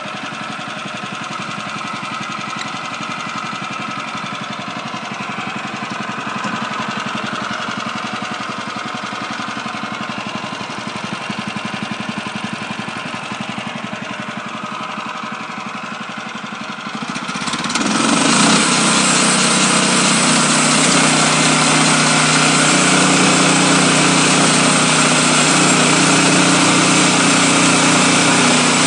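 Portable bandsaw sawmill's small petrol engine running steadily. About seventeen seconds in, the sound turns abruptly much louder and fuller and stays there.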